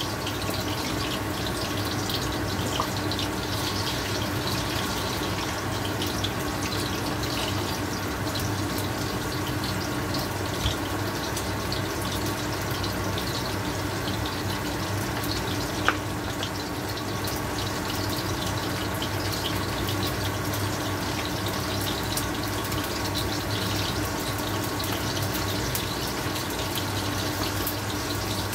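Marinated pork strips frying in hot oil in a steel wok: a steady sizzle with fine crackling, broken by a few sharp clicks.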